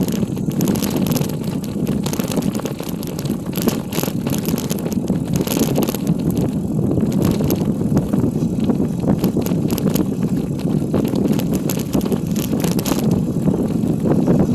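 Bicycle riding along a forest road: a steady rumble of tyres and wind on the microphone, with frequent small rattles and clicks from the bike.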